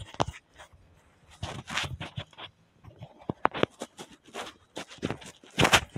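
Lavalier microphone being handled and clipped onto a hoodie collar: close rustling and scraping of fabric against the mic, with sharp clicks, in irregular bursts, the loudest rustle near the end.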